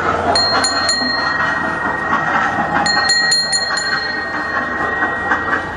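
The cab bell of a children's mini road train locomotive being rung: a few quick strokes about half a second in, then another quick series about three seconds in, its clear tone ringing on afterwards.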